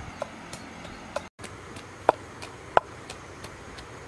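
Wooden pestle pounding red chillies and garlic in a mortar, in regular strikes about three a second, two of them louder past the middle, with a brief break about a third of the way in.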